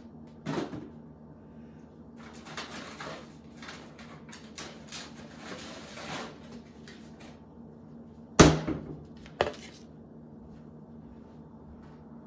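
Kitchen clatter of dishing up a plate of food: a few seconds of scraping and rustling, with two sharp knocks about a second apart a little past the middle, the loudest sounds.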